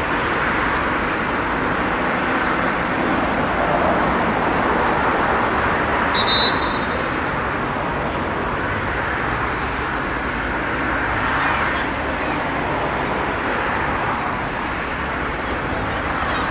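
Steady outdoor background noise, with one short, sharp referee's whistle blast about six seconds in.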